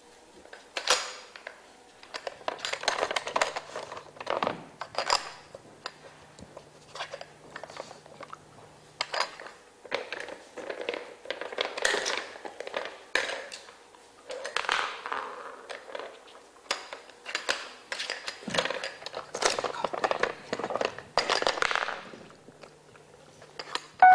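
A dog working a Trixie Flip Board treat puzzle with nose and paws: hard plastic lids flipping, cones knocking and the board scraping, in irregular bursts of clicks and clacks.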